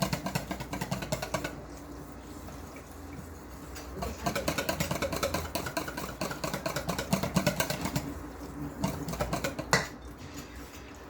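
Whisking batter in a bowl: rapid rhythmic clicking of the whisk against the bowl, in several spells with short pauses, while milk is worked into Yorkshire pudding batter.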